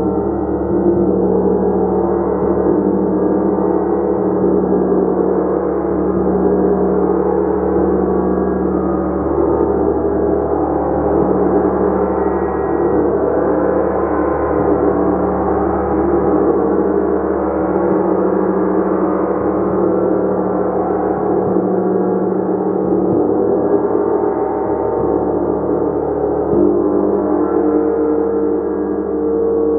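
Gong played continuously: a steady, sustained wash of many overlapping tones that swells gently, with no single strike standing out.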